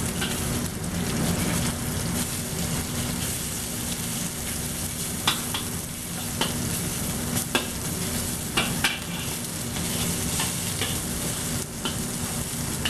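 Thin-sliced marinated beef sizzling in hot oil in a wok while it is browned, with a metal spatula and ladle scraping through it and clinking sharply against the wok a few times.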